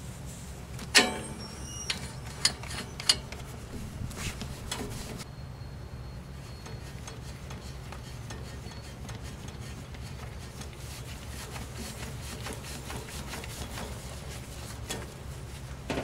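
A threaded fitting on an air conditioner compressor's port being turned by a gloved hand, with light rubbing and scraping of glove and metal. A sharp knock about a second in rings briefly, and two smaller knocks follow within the next two seconds. A low steady hum runs underneath.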